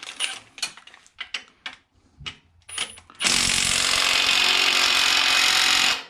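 Handling clicks as a socket is fitted, then about three seconds in a cordless impact wrench runs hard and steadily on a tight bolt, cutting off sharply just before the end.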